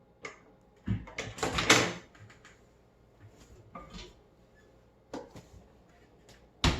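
Microwave oven being loaded: a scattering of knocks and clicks as the door is handled and the paper-towel-wrapped sandwich is set inside, the loudest about a second and a half in and just before the end.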